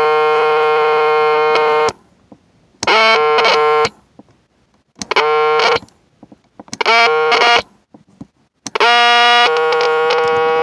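GE 3-5346A battery cassette recorder giving out a loud buzzing electronic tone with many overtones. It cuts out about two seconds in, then comes back in short bursts that slide in pitch before settling, and stays on again near the end. It makes these strange noises when Play is pressed with no cassette in it.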